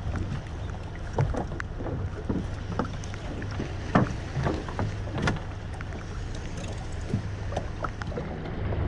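Small fishing boat's engine running steadily with a low hum, with scattered knocks and clatter on board, the loudest about four and five seconds in.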